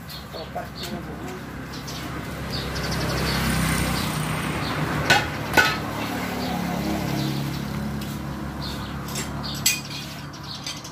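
A motor vehicle's engine running, growing louder over the first few seconds, with sharp metallic clinks twice about five seconds in and once near the end.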